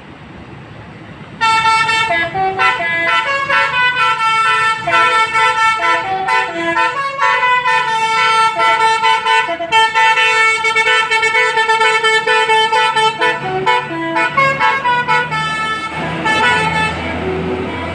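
Bus telolet horn, a Basuri-style multi-note musical horn, playing a quick melody of stepping notes. It starts sharply about a second and a half in and gives way to vehicle noise near the end.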